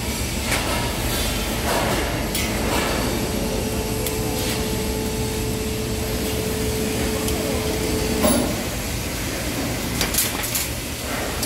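Steady low rumble of a construction site with scattered knocks and rustling as a heavy welding fire blanket is pulled and tucked around a steel beam on scaffolding. A faint steady hum runs from about two seconds to eight seconds in, ending with a knock.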